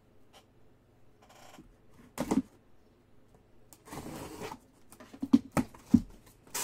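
Cardboard shipping box being opened by hand: packing tape cut and the flaps pulled back, with a few short scraping, tearing rustles and then several sharp knocks of cardboard near the end.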